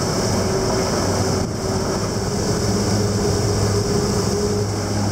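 Outboard motor of a 7 m Surtees plate-aluminium boat running steadily underway, a steady drone with a constant hiss of water and wind over it.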